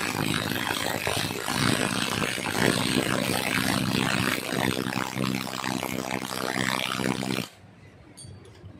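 Two cordless impact drivers hammering at once as they drive long lag screws into a solid wood log, a loud, rapid rattling run that stops abruptly about seven and a half seconds in.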